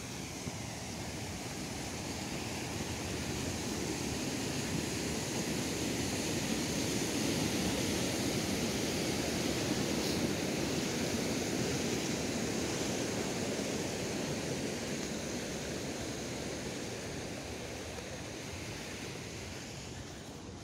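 Mountain stream rushing over rocks: a steady noise of running water that swells to its loudest about halfway through, then slowly fades.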